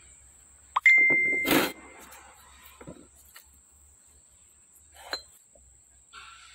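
Metal gear pump parts being handled on a workbench. About a second in comes a loud metal clank that rings on briefly with a clear tone, followed by a heavier knock, and there is a lighter clink near the five-second mark.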